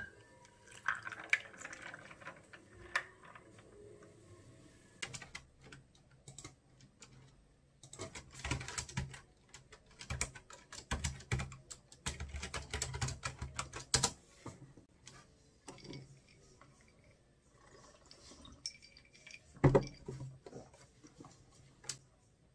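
Irregular light clicks and taps coming in clusters, with one louder knock near the end.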